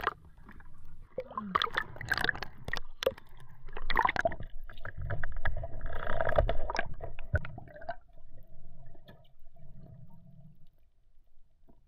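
Seawater splashing, sloshing and gurgling around a camera that dips in and out of the water at the surface, with scattered knocks and bubbling. It settles down over the last few seconds.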